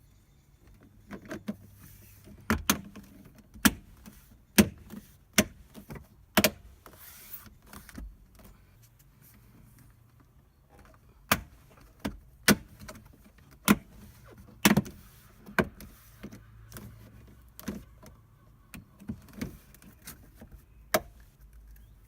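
Irregular sharp plastic clicks and knocks from 3D-printed door sill trim clips being handled and fitted, some twenty in all, in two bunches with a pause of a few seconds between.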